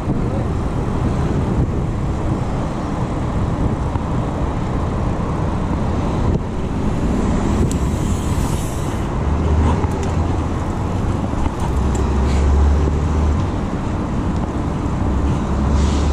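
Wind rushing over a chest-mounted action camera and the tyres of a mountain bike rolling on asphalt, with road traffic around. The low wind rumble swells several times in the second half.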